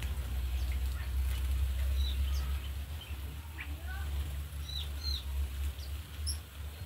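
Birds in an aviary giving scattered short chirps and whistled calls, some sliding in pitch, with wings flapping as a bird flies across; a steady low rumble lies underneath.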